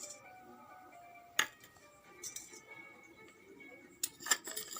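Spoon stirring honey into kadha in a bowl and clinking against its side: a sharp clink about a second and a half in with a faint ringing after it, then a quick run of clinks near the end.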